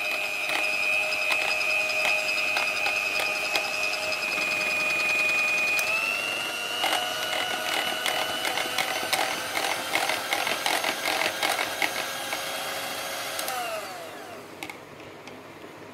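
Laboratory overhead mixer's small electric motor whining steadily as its rod stirs gel in a plastic beaker, with rapid clicking throughout. The pitch steps up slightly about six seconds in, and near the end the motor winds down with a falling whine and stops.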